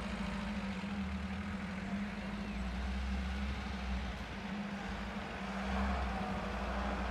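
UAZ-469 off-roader's engine running at low, steady revs, with a short dip in level about four seconds in.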